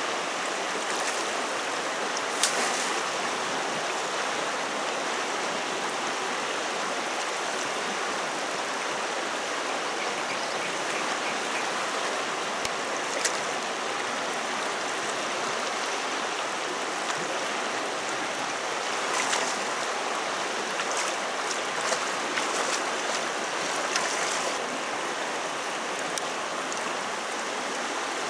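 Swollen, muddy river rushing steadily past the bank, with a few brief splashes as someone wades and works a woven scoop basket in the water.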